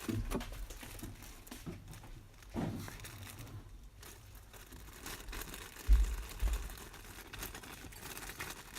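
Packaging being handled, with crinkling and rustling and scattered small clicks, and two short low thumps about six seconds in.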